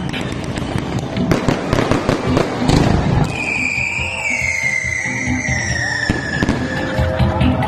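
Fireworks crackling and popping in quick, dense bursts, with a long whistle that slowly falls in pitch through the middle, all over background music.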